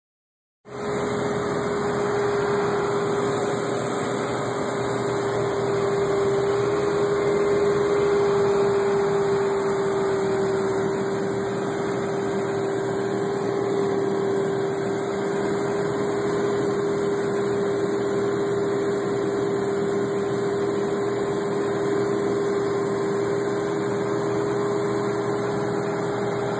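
A light airplane's engine and propeller droning steadily inside the cabin in flight, with one strong steady tone over the noise. The sound starts abruptly about half a second in.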